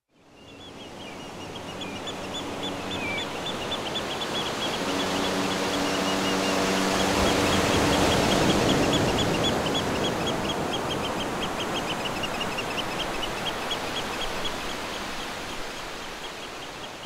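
Outdoor ambience fading in and out: a steady wash like surf with a fast, even run of short high chirps throughout, and a low steady tone with overtones held for a few seconds around the middle.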